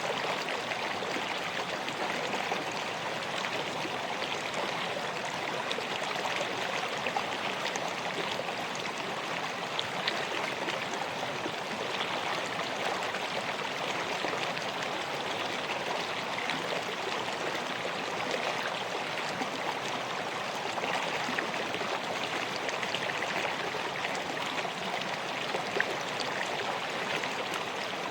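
River water flowing steadily over stones, a constant rushing with small splashes.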